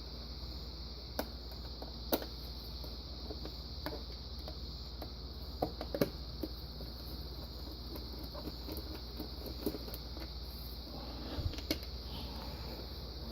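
Scattered light clicks and taps of hand tools and small hardware being worked on a metal unit, with a few sharper ticks, over a steady low hum.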